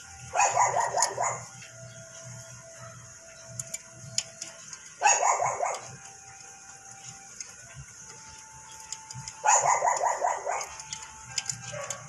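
A dog barking in three bursts of rapid barks: one near the start, one about five seconds in and one near the end.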